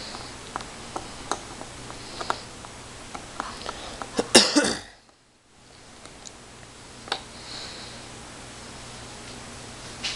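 Scattered light clicks and ticks of a screwdriver and hands working the Phillips screws of a shotgun's rubber butt pad, over a steady hiss. A little over four seconds in comes a loud cough from a man with a cold, and the sound then drops out briefly.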